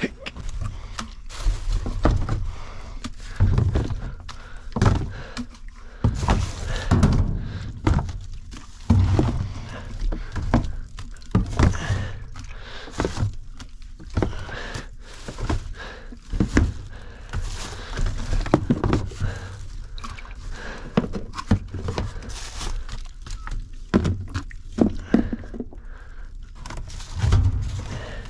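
Rummaging through a dumpster: a string of irregular thunks and knocks as discarded packages are shifted and dropped into a cardboard box, with rustling between them.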